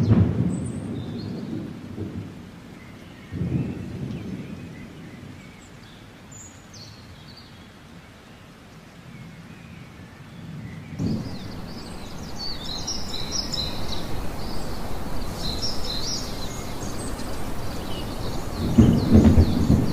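Thunder rumbling over rain: a loud roll at the start that fades over a couple of seconds, another about three seconds in, and a third near the end. The rain grows steadier from about eleven seconds in.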